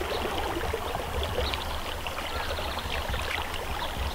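River water flowing: a steady rush with many small trickles and splashes.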